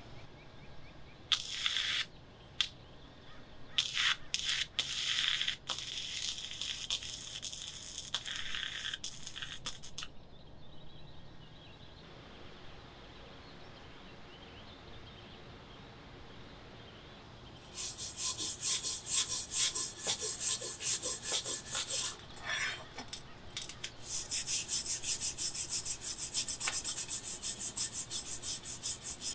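Rasping back-and-forth strokes of hand abrasive work on a machete. They come in scattered bursts in the first ten seconds, fall quiet for several seconds, then run quick and even from about 18 seconds on.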